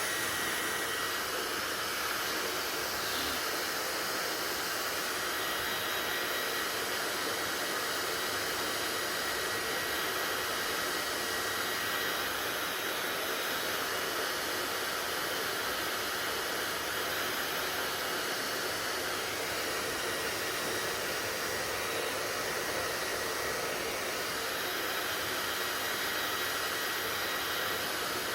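Hair dryer running steadily: an even, unbroken rushing hiss with a faint high whine.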